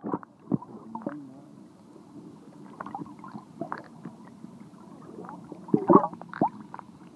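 Water heard from underwater through a phone sealed in a LifeProof waterproof case: dull, muffled gurgling and bubbling with scattered soft knocks, the loudest burst about six seconds in.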